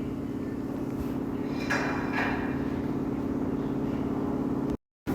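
A steady low machine hum, with brief handling and rustling noises about two seconds in, then a short cut to silence near the end.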